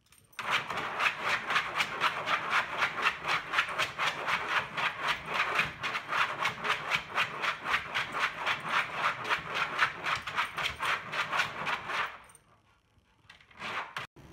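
Rottweiler puppy digging at the pad in its wire crate, its claws scratching fast and evenly, about six or seven strokes a second. The scratching stops about two seconds before the end.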